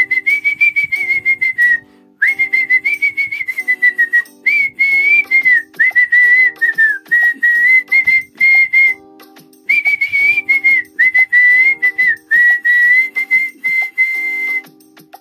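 A man whistling a Kannada film song melody with his lips, a clear high tune in phrases with brief breaks for breath.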